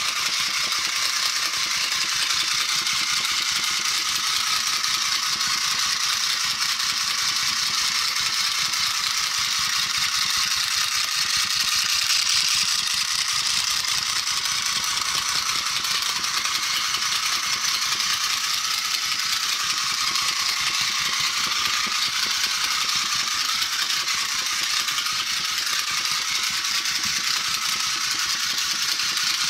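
Battery-operated flying bald eagle toy running steadily: its small electric motor and replaced plastic gears whir with a fast rattle from the wing-flapping mechanism.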